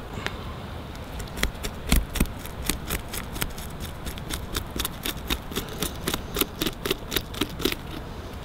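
A knife blade scraping scales off a northern pike against the grain, in quick, even strokes of about four a second. The strokes start about a second in and stop shortly before the end.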